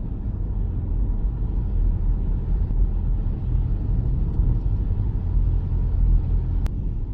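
Steady low road and engine rumble inside a moving Toyota car's cabin, with a single short click near the end.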